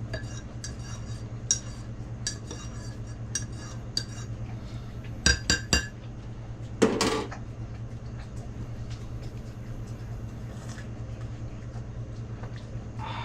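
Light clinks and taps of hard objects, like metal handled against metal, with three sharp knocks in quick succession about five seconds in and a short scraping rush about a second later, over a steady low hum.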